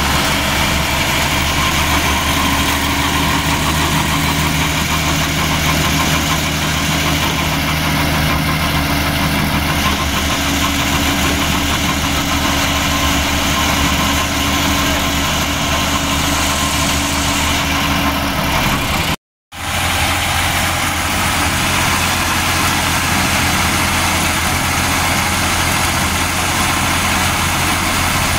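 Tractor engine running steadily, driving a PTO-shaft irrigation water pump. The sound cuts out completely for a moment about two-thirds of the way through, then the engine goes on.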